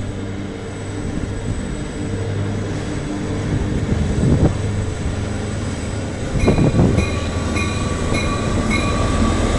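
Diesel locomotive running as it approaches and passes close below, its steady engine drone slowly growing louder. A couple of knocks come through, and a short run of high chirps is heard in the second half.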